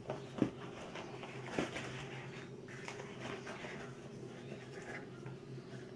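Cardboard shipping box being handled and opened by hand: flaps rustling and scraping, with light knocks about half a second and a second and a half in, over a steady low hum.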